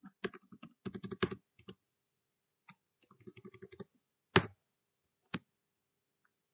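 Typing on a computer keyboard: quick runs of key clicks in two bursts, then two louder single keystrokes a second apart.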